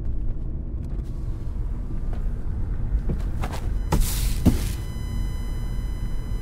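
Cinematic logo-intro sound effects: a steady low rumble, a few quick whooshes about three to four and a half seconds in, then a held high ringing tone that runs on toward the end.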